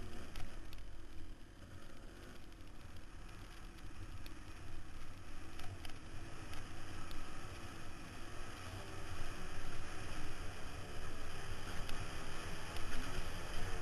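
Off-road dirt bike engine running hard under load while climbing, its pitch rising and falling with the throttle and growing louder in the second half.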